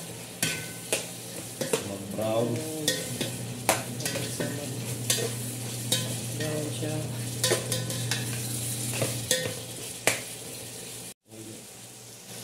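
Chicken pieces sizzling in a large aluminium pot while a metal spoon stirs them, with frequent clicks and scrapes of the spoon against the pot over a steady low hum. The sound cuts out briefly near the end.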